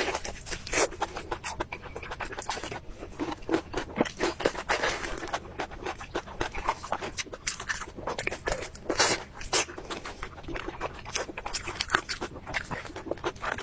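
Close-miked chewing and crunching of food, with irregular, crisp crackling bites and mouth sounds.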